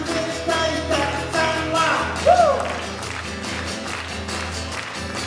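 A man sings to his own strummed acoustic guitar. The sung line ends a little over two seconds in on a falling note, and the guitar carries on alone after that.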